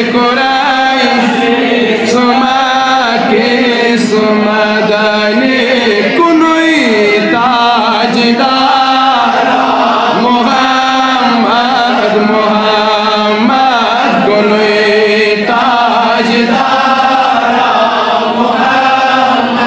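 A man chanting a Kashmiri naat, a devotional song in praise of the Prophet Muhammad, in long, drawn-out melodic phrases with sliding pitch.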